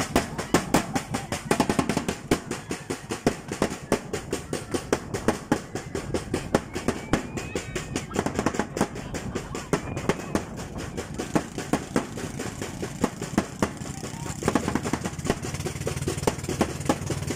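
Marching snare and bass drums beaten in a fast, steady rhythm. About fourteen seconds in the drumming thins out and a boat engine's steady drone takes over.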